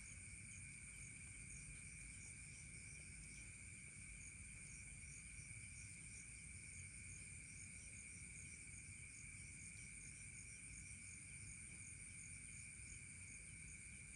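Faint night insect chorus, such as crickets: two steady high trills sound together, with a quicker pulsing chirp repeating over them, and a low rumble underneath.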